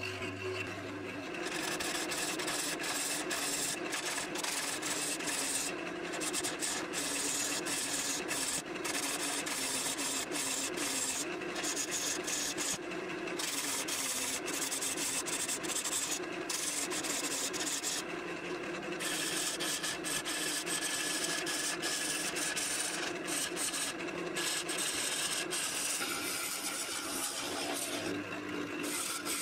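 Elm vase being hand-sanded while it spins on a wood lathe: a steady rubbing hiss of abrasive on the wood over the hum of the lathe.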